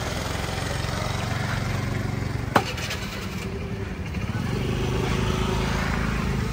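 A small engine running steadily, with a single sharp click about two and a half seconds in.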